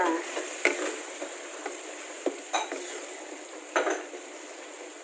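A cooking utensil knocking against the pot about six times at irregular intervals as the asam pedas is stirred, over a steady sizzling hiss from the pot.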